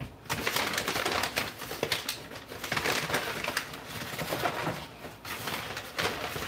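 Close crinkling and rustling made of many small crackles, as something is handled; it pauses briefly about five seconds in and starts again.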